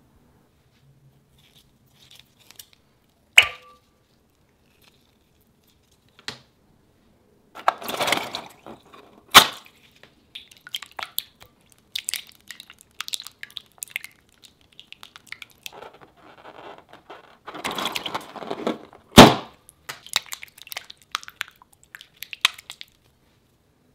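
Green plastic spatula stirring and folding a white slime mixture in a glass bowl: sticky, wet squelching in bouts, with many small clicks and three loud, sharp clicks.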